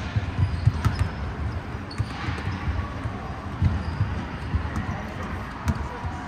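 Basketball bouncing on a hardwood gym floor: a string of irregular dull thuds.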